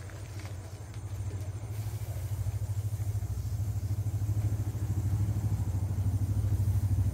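Low, steady rumble of a motor vehicle's engine running, growing slowly louder.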